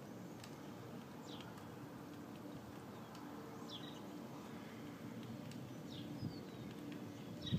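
A bird giving short, high chirps that fall in pitch, about one every second or two, over a steady low background hum.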